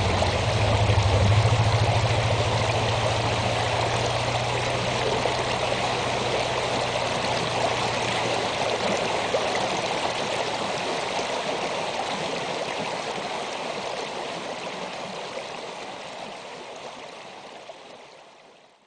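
Shallow winter creek running over rocks during the thaw: a steady rush of flowing water, with a low hum under it for the first half, fading out near the end.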